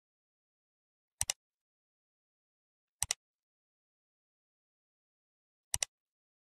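Three mouse-click sound effects, each a quick double click, the first about a second in, the next about two seconds later, and the last near the end.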